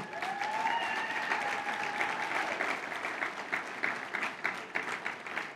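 Audience applauding, with one voice holding a long cheer over the clapping during the first couple of seconds; the clapping thins out toward the end.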